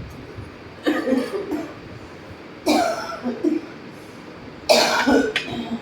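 A woman coughing three times, about two seconds apart, each a short, sudden cough. It is the cough of a feverish chest illness, painful enough that she has to hold herself when she coughs.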